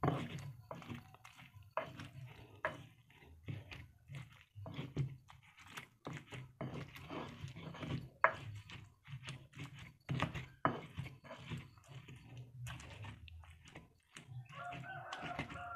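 Pestle grinding and crushing fried tomatoes, shallots, garlic and chilies in a cobek mortar: quiet, irregular wet squishing and crunching with soft knocks of the pestle against the mortar.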